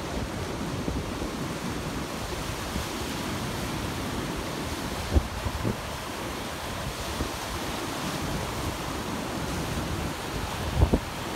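Small waves washing onto the shore, with wind buffeting the microphone. There are a few short low bumps about five seconds in and again near the end.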